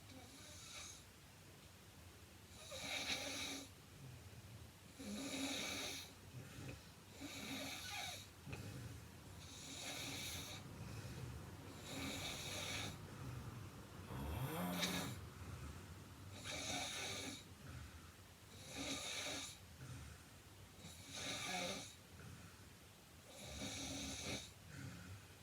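A heavy woman of about 105 kg snoring in her sleep, a steady run of snores about every two seconds, some louder than others.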